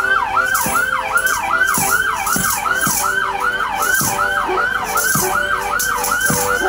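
Fire truck siren on a fast yelp, about three rising-and-falling wails a second, running without a break. Under it, accordion notes and regular bass drum beats from the procession walking ahead.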